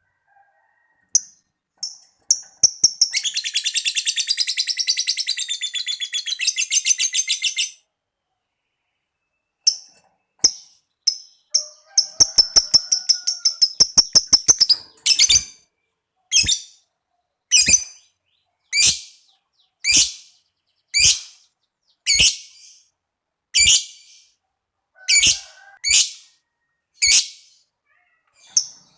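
Lovebird calling: a few short shrill chirps, then a long rapid chattering trill lasting about five seconds (the 'ngekek' sound). After a pause comes another fast run of clipped notes, then single loud shrill calls about once a second.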